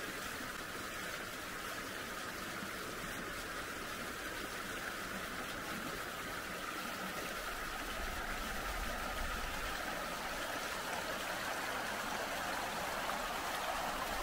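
Shallow river running over stones and a ford, a steady rushing babble that grows a little louder and fuller about halfway through.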